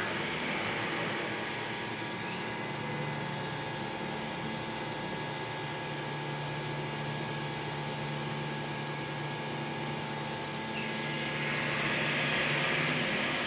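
Hydraulic elevator's pump motor running steadily in its machine room: a continuous mechanical hum and whine with hiss, which grows louder near the end.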